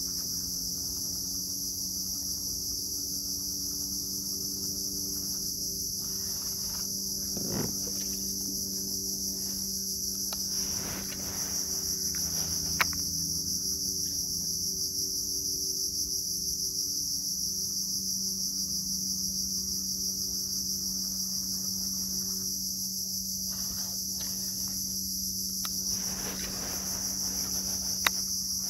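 A steady, high-pitched chorus of insects buzzing in the mangroves, over a faint low hum. Two sharp clicks stand out, one about halfway through and one near the end.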